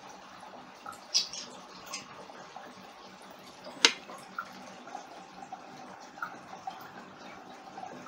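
Faint small clicks and taps of hands handling tools and a glue stick on a work table, with one sharper click about four seconds in, over quiet room tone.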